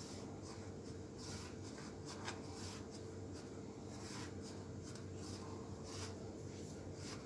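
Fingers rubbing and scraping whole-wheat flour against a steel plate in faint, repeated strokes, working oil into the flour until it crumbles like breadcrumbs.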